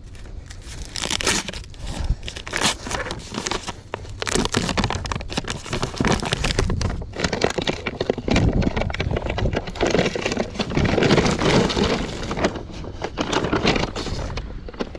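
Irregular crinkling and rustling, with many small clicks and knocks, as building materials are handled and sorted.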